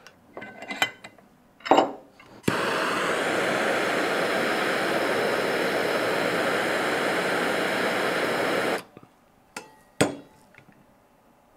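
Handheld propane torch lit with a click, its flame hissing steadily for about six seconds as it is held on a plastic test bar, then shut off suddenly. A few knocks of handling come before and after.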